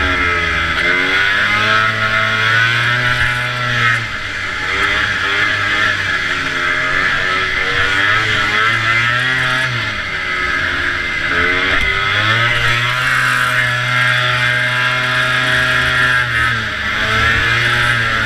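Vintage two-stroke racing snowmobile engine at high revs, the pitch dropping and climbing again several times as the throttle is eased off and reopened through the turns, over a steady rushing hiss.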